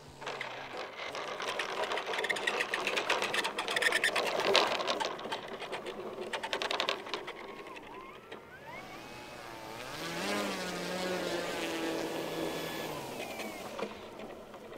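Hangar 9 P-47 Thunderbolt RC model's wheels rattling and rumbling over the asphalt on its landing rollout. About eight seconds in, its electric motor whines up, holds a steady pitch as the plane taxis, then winds down near the end.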